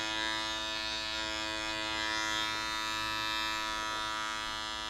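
Electric hair clipper with a number 3 guard running with a steady, even hum.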